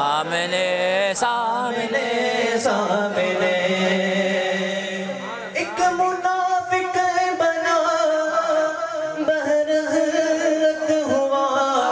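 A man sings a naat into a microphone, unaccompanied and amplified. The first half is ornamented and wavering, then comes a run of long held notes.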